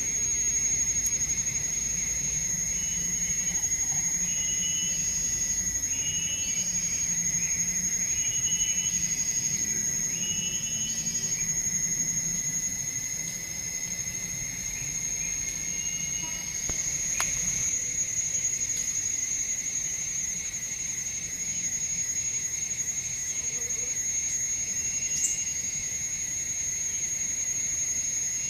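Forest insects trilling steadily at a high pitch over a second, lower steady drone, with a run of short chirps repeating about once a second in the first half.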